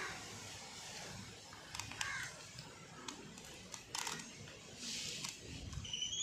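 Steel spoon scraping and scooping the seeds out of a halved ripe muskmelon: soft wet scraping with scattered light clicks of the spoon. A short rising whistle near the end.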